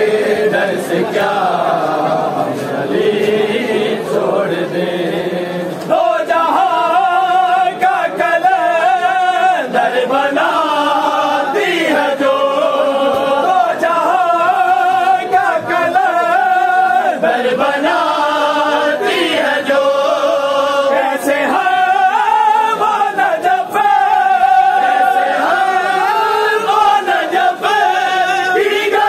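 A group of men chanting a noha, a Shia mourning lament, in unison without instruments. About six seconds in, the chorus gives way to a clearer lead melody.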